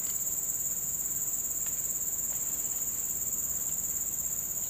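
A steady, high-pitched chorus of insects chirring in a fast, even trill, with two shrill bands of pitch, one above the other.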